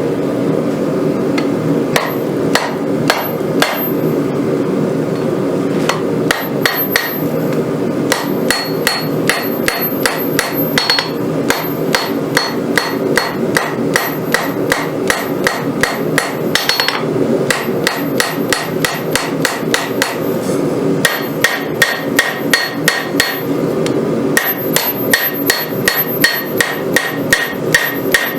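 Hammer blows on hot Damascus steel over an anvil, forging the profile of a Bowie knife blade. The strikes come about two to three a second, each with a bright ring, and pause briefly a few times. A steady low rumble runs beneath them.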